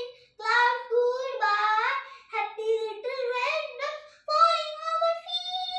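A young child singing a rhyme unaccompanied, in short high-pitched phrases with some held notes and brief pauses between them.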